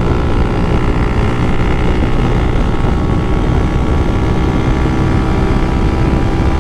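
Honda Titan 2000 motorcycle with a built-up 240cc OHC single running at steady high revs through a GRS aftermarket exhaust while cruising at speed. The engine note holds one pitch throughout, under heavy wind rush on the microphone.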